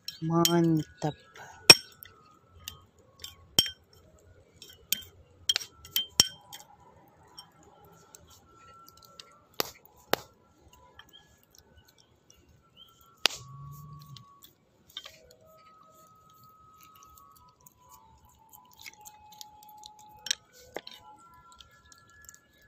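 Metal spoon clinking and scraping against a bowl and a metal tray of skewered chicken satay as seasoning paste is spooned over the meat. Scattered sharp clinks, the loudest about two seconds in, around ten seconds and around thirteen seconds.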